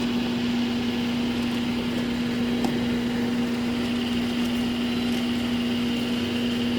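2015 GE 24,000 BTU wall air conditioner running steadily: an even hum under a constant rush of fan air.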